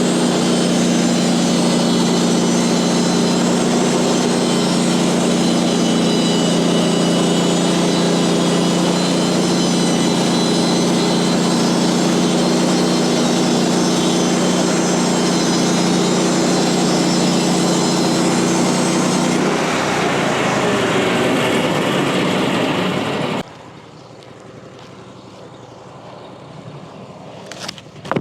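An engine running steadily at high revs. Its note turns rougher about 19 seconds in, and it cuts off suddenly about 23 seconds in, leaving only a faint background.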